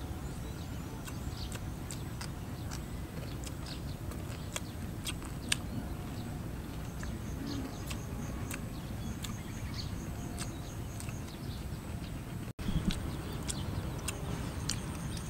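Close chewing and mouth clicks of someone eating rice and fish by hand, over a steady low rumble. A faint, high, pulsing trill runs for a few seconds in the middle, and the sound cuts out briefly near the end.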